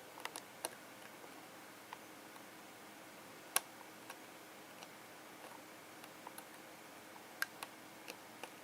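Faint, scattered clicks and ticks of plastic Girder and Panel toy building pieces being pressed into their base, about ten light taps spread irregularly, with one sharper click near the middle.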